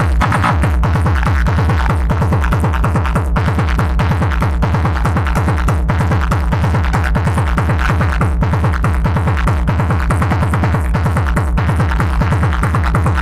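Electronic dance music with a heavy, pulsing bass beat, played loud through a DJ sound-box system.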